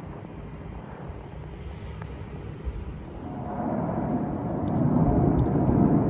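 Jet noise from a formation of Kawasaki T-4 jet trainers flying over, swelling from about halfway through and growing loud toward the end, with a faint steady whine over the rush.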